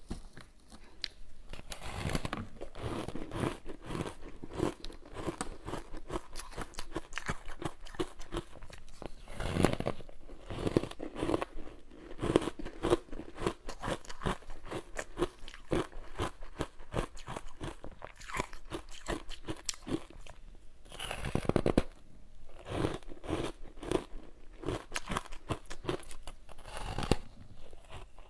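Ice coated in matcha green tea powder being bitten and chewed: a steady run of dense crackling crunches, with several louder bites scattered through, the loudest a little past two-thirds of the way in.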